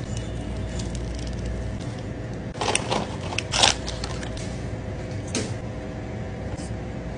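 Plastic snack packaging crinkling and tearing open in a few short bursts, the loudest a little past the middle, over a steady low hum.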